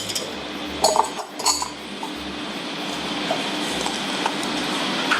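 Tableware clinking a few times in the first second and a half, over the steady noise of a kitchen ventilation fan that carries on to the end.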